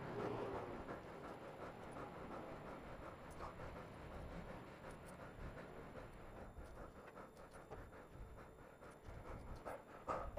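Heavy breathing close to a helmet-mounted microphone, with faint scattered clicks and rustling.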